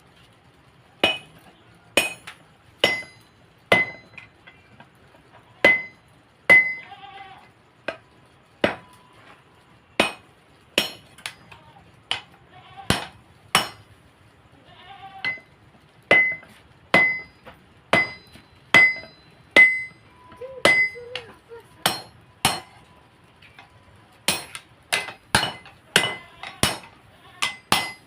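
Hammer blows on a blade at the anvil during hand forging, each strike a sharp metallic clang with a ringing ping. The strikes come roughly once a second, in irregular runs with brief pauses.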